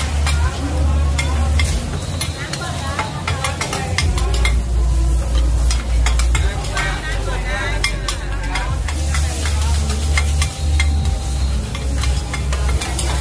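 Metal spatulas scraping and clinking on a large flat griddle in quick, irregular strokes while green-mussel omelettes (hoy tod) sizzle in oil. A steady low hum runs underneath.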